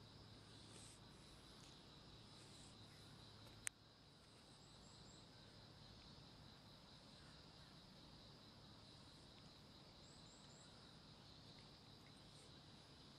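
Near silence with faint, steady insect chirring outdoors, a couple of brief high bird chirps, and a single sharp click about three and a half seconds in.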